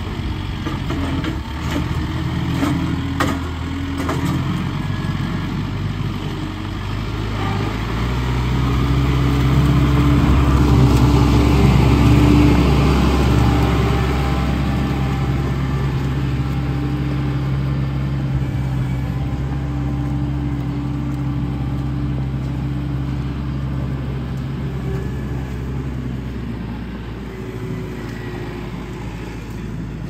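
Kubota tractor's diesel engine running as the tractor drives about. It grows louder as it comes close around ten seconds in, then steadies and fades near the end. A few sharp clanks sound in the first few seconds.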